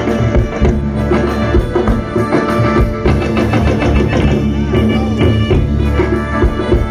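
Loud amplified music over PA speakers, with a drum kit and heavy bass keeping a steady beat.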